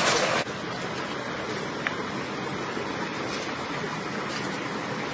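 Steady rush of flowing stream water, louder for the first half-second and then cut down abruptly to an even, quieter rush, with a few faint ticks.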